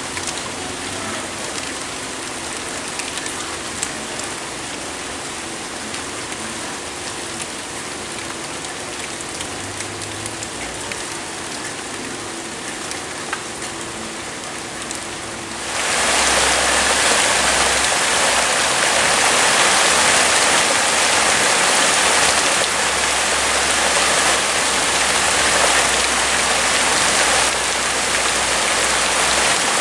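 Heavy rain pouring down in a steady downpour. About halfway through it suddenly gets louder and brighter.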